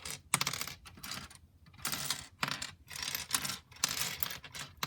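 Loose plastic pieces of a dismantled 5x5x5 Rubik's cube clicking and clattering together on a hard surface as they are picked through and sorted, in several short clusters of clicks.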